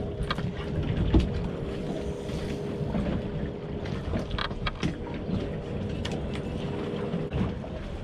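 Sound aboard a small fishing boat at sea: a steady low rumble with a constant hum, wind on the microphone, and a few sharp clicks or knocks, about a second in and again around the middle.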